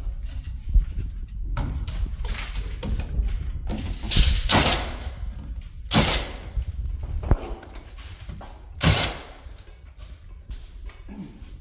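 A door being fitted into its frame: a few sharp knocks and thumps, with longer sweeping rubs of the door and frame between them.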